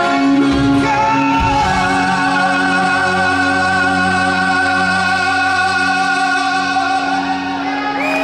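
Live rock band playing a slow, sustained passage: a singer holds long notes with vibrato over held chords and a steady low bass note.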